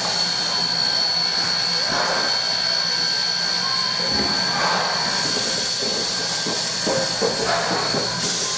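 NZR A class 4-6-2 steam locomotive A428 standing and hissing steam steadily, with a thin high whistle-like tone held in the hiss and no exhaust beats.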